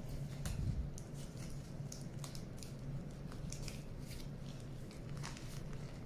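Plastic zip-top bag crinkling faintly with scattered soft clicks as hands squeeze and knead the soft, creamy cold porcelain dough inside it.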